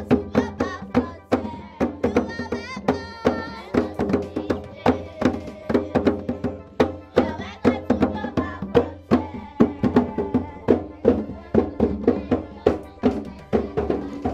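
Music with a steady, fast beat of drums and percussion under pitched melody lines.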